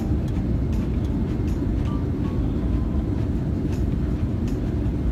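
Steady low rumble of a jet airliner in flight, engine and airflow noise heard from inside the cabin.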